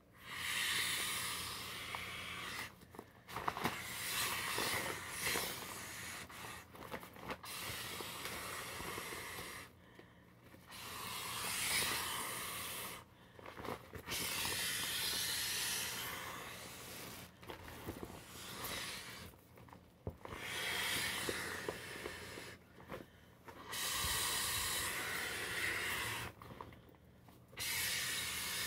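A vinyl inflatable globe being blown up by mouth: about nine long breathy blows into its valve, each lasting two to three seconds, with short pauses for breath between them.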